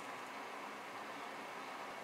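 Steady, even hiss of room tone with no distinct events.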